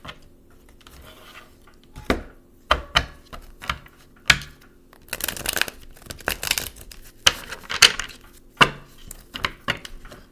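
A deck of tarot cards being handled on a wooden table: several sharp taps and clicks in the first few seconds, then rustling stretches of the cards being shuffled and slid together, with a few more clicks near the end.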